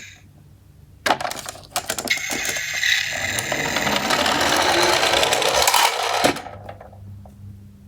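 A few clicks, then a small toy garbage truck's wheels rolling and rattling down a slope for about four seconds, getting louder, before stopping suddenly.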